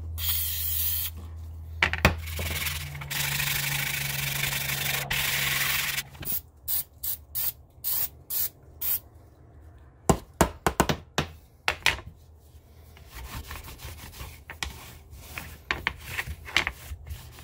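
An aerosol can sprays in a steady hiss for several seconds, with a short break about two seconds in. Then come irregular, sharp scraping strokes as old mirror adhesive is picked off a plastic side-mirror glass plate. Near the end a cloth rag rubs the plate in quicker, softer strokes.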